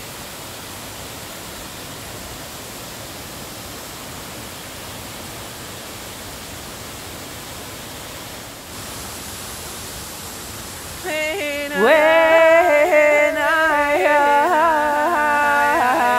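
Steady rush of a waterfall, then about eleven seconds in a voice comes in singing a wordless melody over it, sliding up as it starts and much louder than the water.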